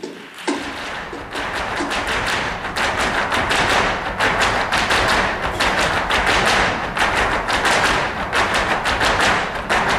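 Rapid, dense flamenco-style heel-and-toe stamping (zapateado) by a group of dancers on a stage floor, growing louder over the first few seconds.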